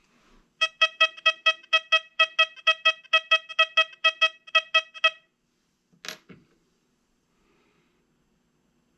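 XP Deus 2 metal detector sounding its target tone for an old copper Indian head cent: a fast string of identical short beeps at one pitch, about four or five a second, lasting some four and a half seconds. A single knock follows about six seconds in.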